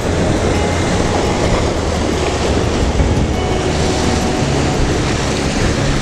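Sea waves surging and foaming among rocks at the foot of a cliff: a steady, loud rush of water.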